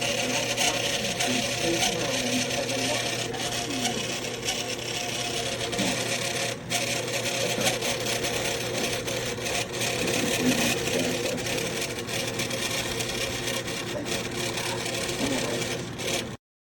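BLACK+DECKER 1500 W portable space heater running, its fan giving a steady rush of air over a low electrical hum. The sound stops abruptly near the end.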